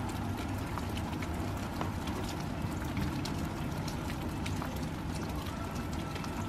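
Steady rain falling through bare trees, with many scattered small drips over a low, steady rumble.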